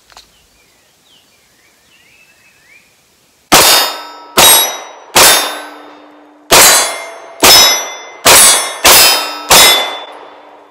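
Pistol fired eight times, starting about three and a half seconds in, with a steel target ringing after each shot.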